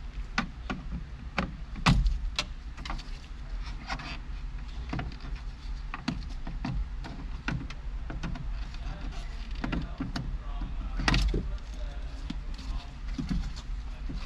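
Scattered clicks and knocks of car door trim parts being worked loose and removed by hand, with two louder knocks about two seconds in and about eleven seconds in, over a steady low hum.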